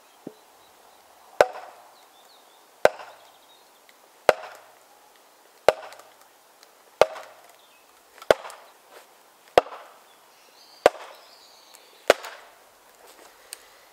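A heavy green-oak maul striking the top of a tool set in the end of an ash log section, nine sharp wooden knocks at an even pace of about one every 1.3 seconds, each with a brief ring after it. The blows drive the tool in to split the log.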